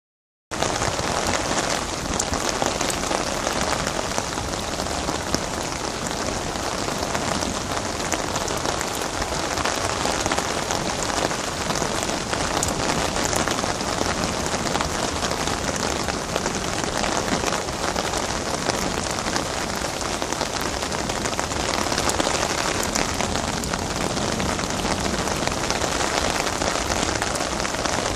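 Heavy rain pouring down steadily, a dense, even hiss of countless drops.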